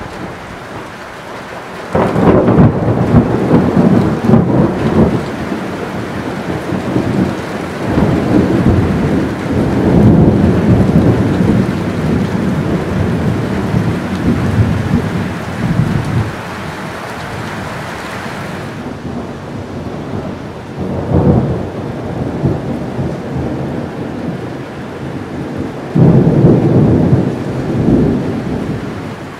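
Thunder rolling over steady heavy rain. A loud peal breaks in suddenly about two seconds in and rumbles on in waves for over ten seconds. A shorter rumble comes a little past the middle, and another loud peal comes near the end; the rain hiss thins about two-thirds of the way through.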